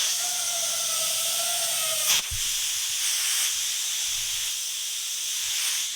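An 85-amp Hypertherm plasma cutter cutting through the steel of a skid. The arc starts abruptly with a loud, steady hiss and holds. A wavering whistle-like tone rides on it for the first two seconds, and there is a brief knock about two seconds in.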